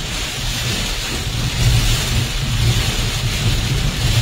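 Heavy rain and road noise heard inside a moving car: rain hissing on the roof and windscreen and tyres running through standing water, over a steady low rumble of the car.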